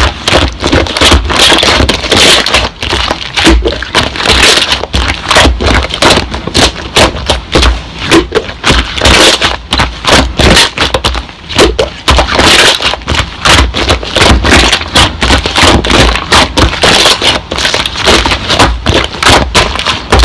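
Slime being squeezed and pressed by hand, giving a dense, continuous run of crackling, popping clicks.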